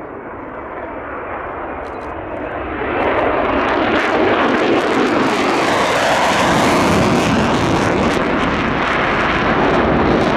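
Jet noise from a Lockheed Martin F-35 Lightning II's single F135 turbofan. The noise builds, jumps sharply louder about three seconds in, and then stays loud.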